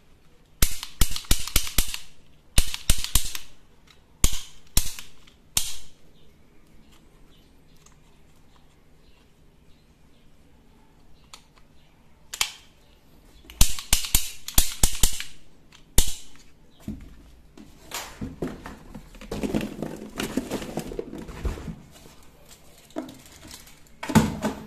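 Toy gun firing in short bursts of rapid, sharp clicks, several bursts in the first few seconds and another about halfway through. In the later part the clicks give way to a lower plastic rattling, then one more short burst near the end.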